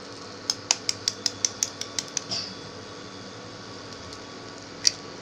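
A metal spoon tapping an eggshell rapidly, about ten sharp clicks in a couple of seconds, to crack the egg; one more sharp tap near the end.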